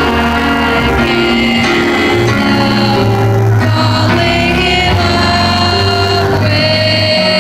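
Live pop performance heard from the audience through a phone's microphone: a male singer holds long, slow sung notes over sustained instrumental chords, with loud, poor-quality sound.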